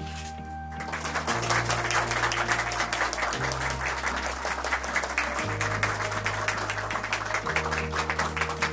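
Applause starts about a second in and continues over background music whose held bass note changes every two seconds or so.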